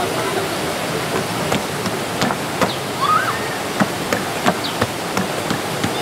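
Steady rush of river water from the waterfall, with scattered sharp clicks and knocks over it and a short rising-then-falling chirp about three seconds in.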